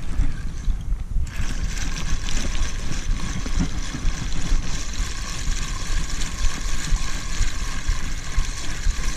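Spinning reel being wound in to retrieve a feeder rig: a steady whirring that starts suddenly about a second in, over a low rumble.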